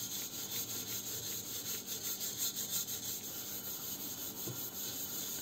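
Wire scourer scrubbing the burnt outside of a metal teapot with a paste of grated lemon peel, baking soda and vaseline, in quick repeated back-and-forth strokes. The softened burnt layer comes off easily.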